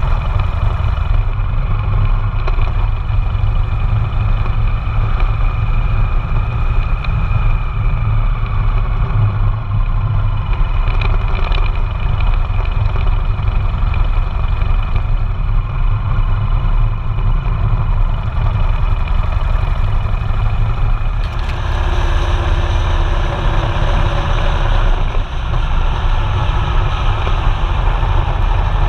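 Motorcycle engine running under way, heard through heavy wind rush on a bike-mounted camera's microphone. About two-thirds of the way through the sound turns brighter and fuller in the upper range.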